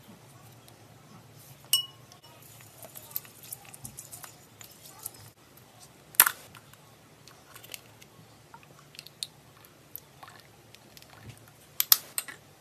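Sharp plastic clicks and taps as small paint pots, a slime activator bottle and a small plastic cup are handled over a glass bowl, the loudest click about six seconds in and a quick run of taps near the end.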